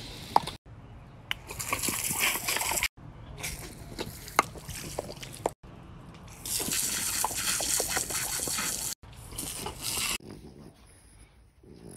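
Water spraying from a garden hose through a multi-pattern spray nozzle, heard as loud hissing in several short stretches broken by abrupt cuts, with a few sharp clicks. Near the end it gives way to a much quieter stretch.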